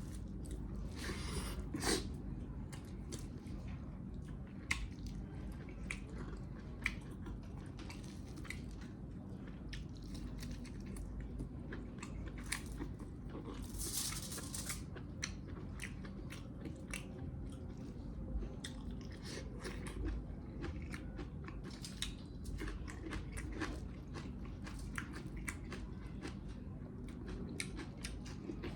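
Close-up chewing and biting of mutton leg meat, with many short sharp mouth clicks throughout and a brief louder rush of noise about halfway through.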